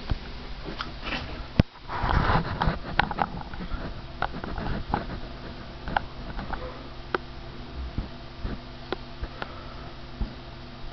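Scattered small clicks and rustles from a hand-held camera being moved about, over a steady low hum, with a denser rush of noise about two seconds in.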